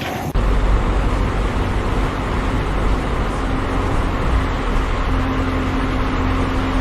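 A heavy engine running steadily with a deep rumble; a faint steady hum joins about a second and a half in.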